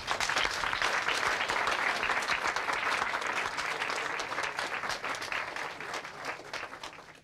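Audience applauding, many hands clapping at once, the applause thinning and fading away over the last couple of seconds.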